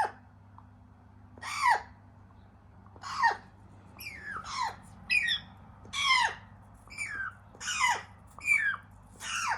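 African grey parrot chicks giving short squawking calls over and over, each call sliding down in pitch, about one or two a second.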